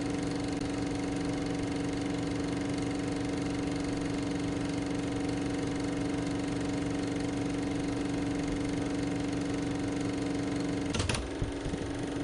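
A steady, motor-like drone with a strong held hum that does not change in pitch. About eleven seconds in it briefly crackles and wavers, then carries on.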